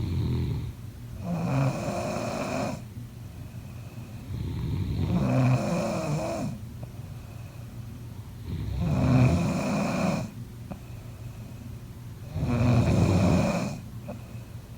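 A person snoring: four long snores at a steady rhythm, about one every four seconds, with a quieter low sound between them.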